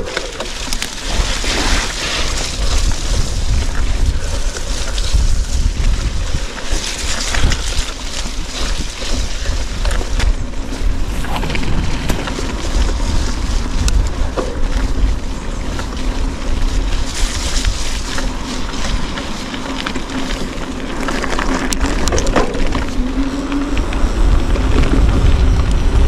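Wind rushing over the microphone of a camera riding along on a bicycle, with scattered knocks and rattles. A low steady hum joins in near the end.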